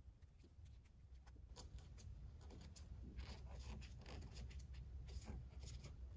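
Faint rustling and scraping of a rubber trunk weatherstrip being handled with nitrile gloves and pressed into the glued channel of the metal deck lid. There are short strokes in quick succession from about a second and a half in, over a low steady hum.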